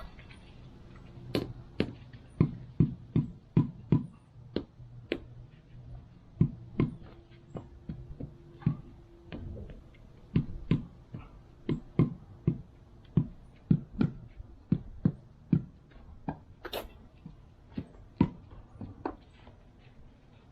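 Repeated sharp knocks from a bluestone stair tread being tapped down to set it in place. The knocks come in runs of about two a second, with short pauses between the runs.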